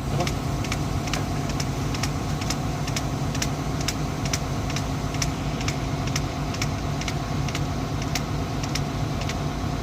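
Volvo excavator's diesel engine idling steadily, with a sharp, even clicking about twice a second over it.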